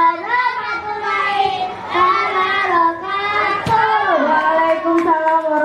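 A young child singing into a microphone in long held notes, with a falling slide in pitch about four seconds in.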